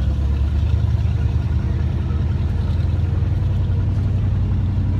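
Steady low rumble of a pickup truck's engine and road noise, heard from inside the cab while driving.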